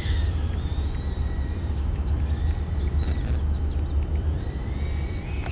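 Small FPV quadcopter with 1105 motors, a BetaFPV 85X whoop, flying. Its motors and propellers whine faintly, sliding up and down in pitch as the throttle changes, with a rising whine about four seconds in. Heavy wind rumble on the microphone sits under it.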